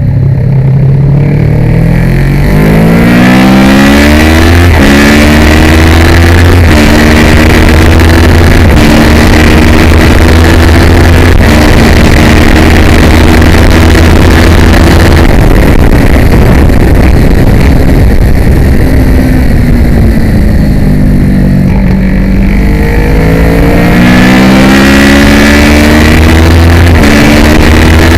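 Kawasaki ER6 649 cc parallel-twin race engine at full throttle, its pitch climbing and dropping back in steps through several quick upshifts. In the middle it falls away as the bike slows and changes down, then it accelerates and shifts up twice more near the end, with wind rushing past throughout.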